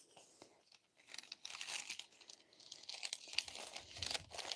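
Faint crinkling and rustling of small paper packaging being handled, in scattered little crackles that begin about a second in.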